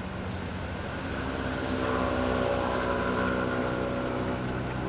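A motor's steady hum, growing louder to a peak about two to three seconds in and then easing off, like an engine passing nearby.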